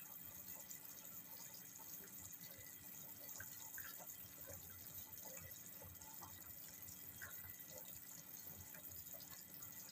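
Faint bubbling of chicken and vegetable soup boiling in a saucepan, with scattered small pops over a low hiss.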